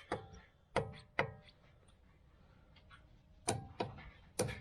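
A handful of sharp, short metallic clinks and knocks, each ringing briefly, spread unevenly with a quicker cluster near the end, like metal tools or parts being handled.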